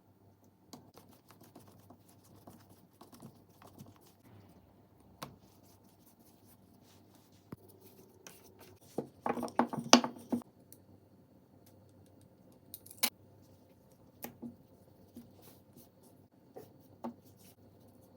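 Kitchen food-preparation handling: light scrapes and taps, with a quick run of sharper knocks about halfway through and one more sharp click a few seconds later.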